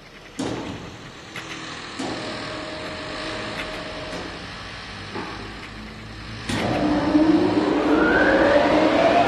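A machine's motor switched on with a clunk and spinning up, its whine rising steadily in pitch. Before that come a few sharp clicks and a brief faint steady hum.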